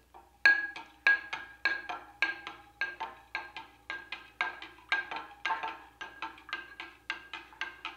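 A metal spoon stirring briskly in a tall drinking glass, clinking against the glass about three times a second, each clink ringing briefly.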